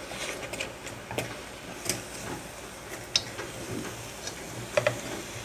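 A utensil working a thick, sticky flour dough (choux paste for bala el sham) in a pot on the stove, with scattered clicks and knocks of the utensil against the pot as the dough comes together into one mass.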